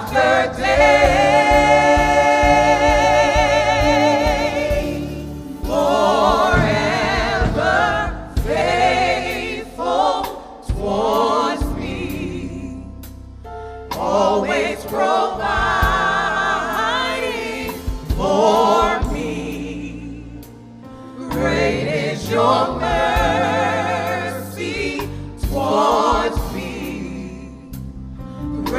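A small gospel vocal ensemble of men's and women's voices singing together, opening with a long held chord with vibrato and then moving through shorter sung phrases.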